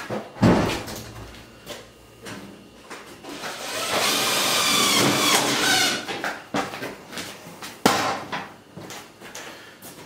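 A cordless drill driving a screw into galvanized stovepipe for about two seconds near the middle, its whine bending in pitch as the screw bites. Sharp knocks of sheet-metal pipe come about half a second in and again near the end.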